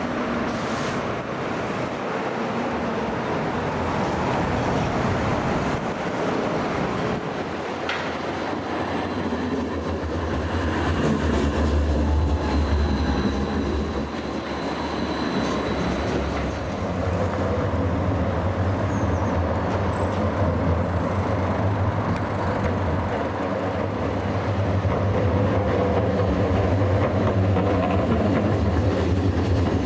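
Edinburgh Trams CAF Urbos 3 trams passing close on street track: a steady low electric hum and rumble of wheels on rail, swelling about a third of the way in and again through the second half, with faint thin high whines over the street noise.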